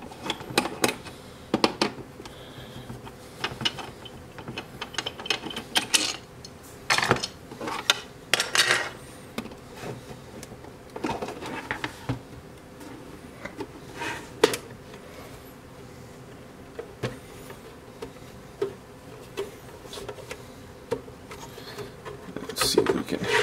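A benchtop frequency counter being taken apart by hand. A screwdriver works out the case screws, then the plastic case halves are handled, turned over and pulled apart on a workbench. The sound is scattered clicks, scrapes and knocks of plastic and small metal parts, with several louder clatters spread irregularly through it.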